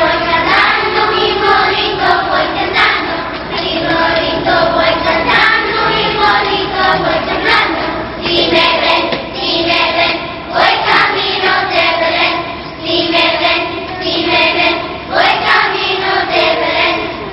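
Children's voices singing a song together in chorus.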